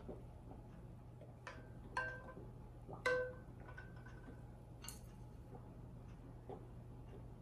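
Light knocks and clinks of glass jars, a plastic funnel and a wooden ladle as pickling brine is ladled into jars of chili peppers. The loudest is about three seconds in and rings briefly, with a low steady hum underneath.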